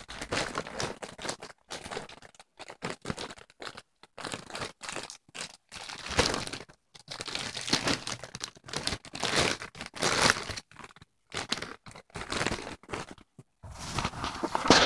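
Plastic mailing bag crinkling and tearing in irregular bursts, with short pauses, as it is opened by hand.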